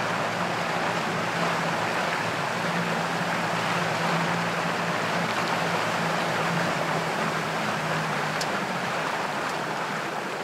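Small motorboat under way: a steady engine hum under the rush of water and wind from the boat's run over the sea. The engine note eases off slightly near the end.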